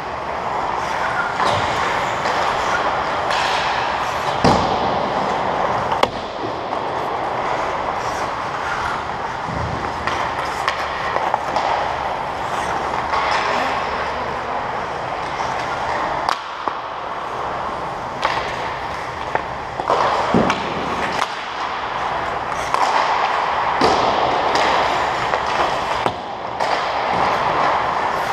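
Ice hockey play: a steady scraping hiss of skate blades on the ice, with a sharp knock of stick or puck every few seconds.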